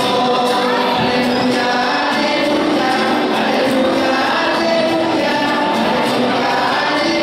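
Church choir singing with acoustic guitar accompaniment, amplified over loudspeakers.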